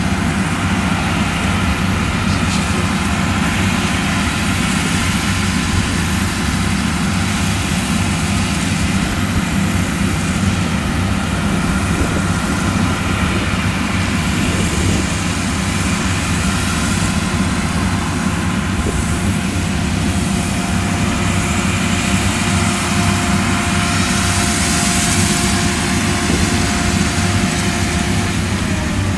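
Claas Lexion 760 TT combine harvester running steadily under load in maize, unloading grain through its auger into a trailer: a loud, even mechanical drone. A faint steady whine joins in the second half and stops near the end.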